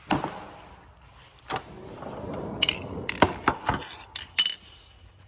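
Metal hand tools clinking and rattling as they are handled, likely a socket and ratchet, with a rustling scrape between and several sharp clinks, the last one ringing briefly.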